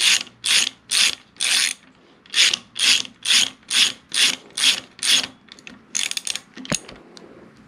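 A hand socket ratchet clicking in quick back-and-forth strokes, about two a second, with a short pause about two seconds in and a few lighter clicks near the end. It is running down the standpipe and dummy plug on a 6.0 Powerstroke cylinder head.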